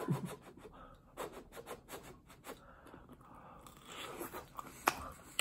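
A person biting and chewing a slice of oven-baked frozen pizza: faint crackling crunches of crisp crust and wet mouth sounds, with one sharper crunch near the end.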